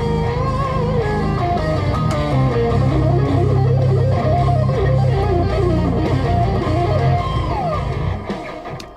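Electric guitar playing a lead solo at slow tempo, with bent and sliding notes and quick legato runs over steady low notes underneath. The playing stops and dies away near the end.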